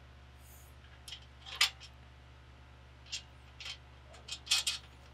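Small metallic clicks and clinks of nuts and washers being threaded finger-tight onto bolts through a steel bracket, a few scattered taps with the sharpest about one and a half seconds in and a short cluster near the end.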